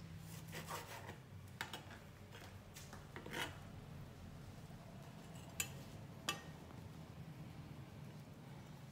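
Faint scattered taps and scrapes of a knife and sliced pork on a plastic cutting board and a ceramic plate as the meat is moved onto the plate, with two sharper clicks past the middle.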